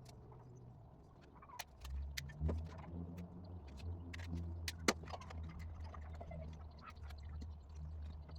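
Scattered sharp clicks and clinks, the loudest about five seconds in, over a low steady hum.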